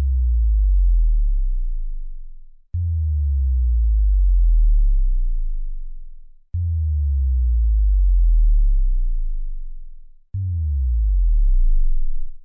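Synthesized bass drop sound effects, one after another: each starts suddenly and slides down in pitch to a deep sub-bass rumble over about three and a half seconds before fading out. Three full drops play, and a shorter fourth begins near the end.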